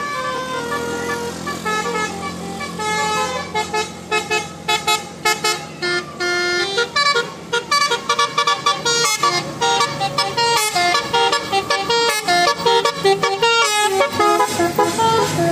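Bus telolet horn, a set of multi-tone horns, playing a melody in stepped notes: held notes at first, then quick, choppy short notes from about halfway through.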